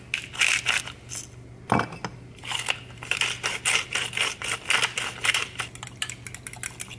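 Wooden hand mill grinding salt and pepper, twisted by hand: rapid runs of clicking, with a pause and a single knock near two seconds in before the grinding resumes.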